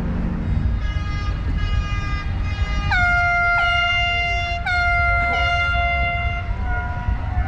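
Air horn sounding a run of blasts at one fairly high pitch: faint quick toots at first, then from about three seconds in several louder, longer blasts, each opening with a slight upward scoop. A steady low rumble runs underneath.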